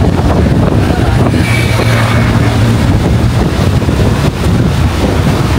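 Loud wind buffeting the microphone by the sea, with a low steady hum from about one to three and a half seconds in.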